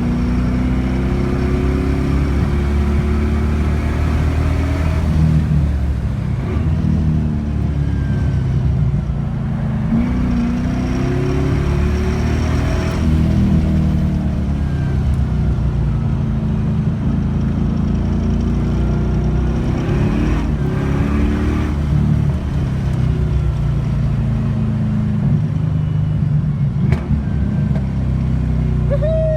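The LS1 V8 in a BMW 318ti is being driven hard, its revs climbing and dropping again and again through gear changes and lifts.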